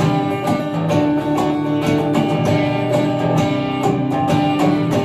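Guitar strummed in a steady rhythm over sustained chords: an instrumental break between sung lines of a pop-style song.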